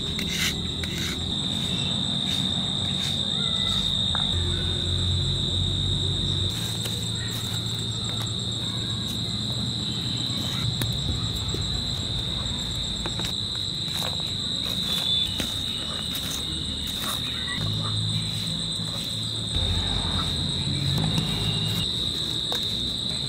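Crickets trilling in a steady, continuous high-pitched chorus, with a low rumble and occasional short clicks underneath.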